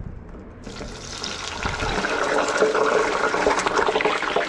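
Frozen fish sticks dropped into deep-fryer oil at 350°F, sizzling and crackling hard. The sizzle breaks out suddenly about half a second in and swells louder over the next second, the vigorous boiling-off of water from food that went in frozen solid.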